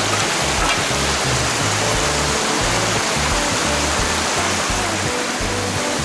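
Steady loud rushing of mountain stream water, with background music playing over it, its bass notes stepping along underneath.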